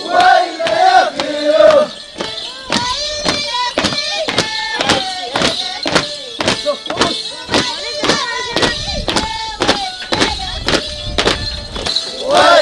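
Huaylía music with a group of voices: singing in the first two seconds, then a high, gliding melody over a steady beat of sharp strikes, about three to four a second.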